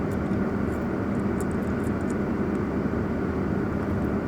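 A car's steady low rumble with a faint even hum.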